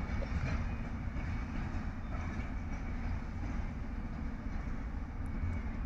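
SM42 diesel shunting locomotive running as it moves slowly with a few wagons: a steady low engine rumble.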